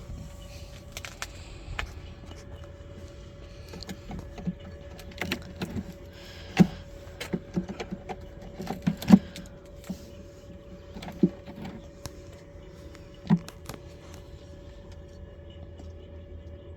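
Scattered sharp knocks, clicks and scrapes of hive parts being handled as a dead beehive is taken apart. The loudest knocks come about six and a half, nine and eleven seconds in, over a faint steady hum.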